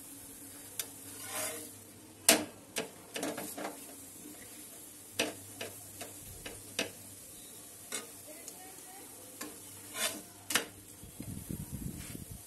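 Spatula knocking and scraping against a nonstick frying pan while a methi paratha is pressed and moved, over a faint sizzle of the paratha frying in a little oil. The knocks come irregularly, the loudest about two seconds in.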